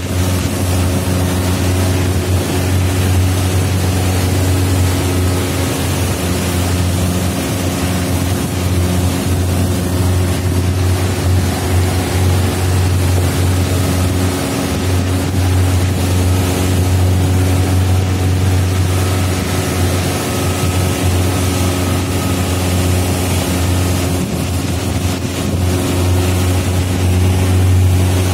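Small motorboat's engine running steadily under way, a constant low hum, with rushing wind and water noise over it.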